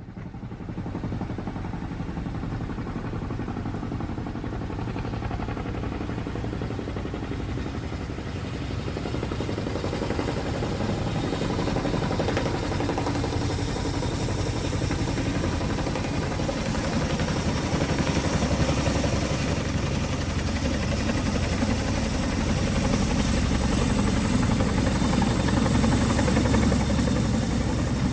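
Boeing CH-47 Chinook tandem-rotor helicopter running, a dense rapid rotor chop under a thin steady high whine. It fades in at the start and grows gradually louder.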